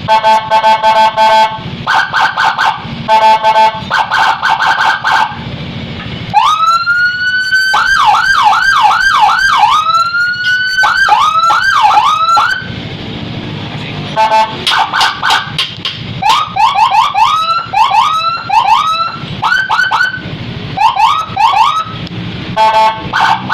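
Whelen Alfa electronic siren module cycling through its automatic tone patterns. It opens with short, rapid pulsed blasts, then about six seconds in a rising wail breaks into fast up-and-down yelps. After a short pause come quick chirping whoops and more pulsed bursts.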